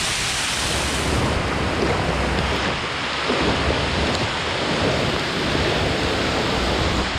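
Water from a small hot-spring waterfall pouring close by, then, about a second in, heavy rain pouring onto the pool, with a low rumble underneath.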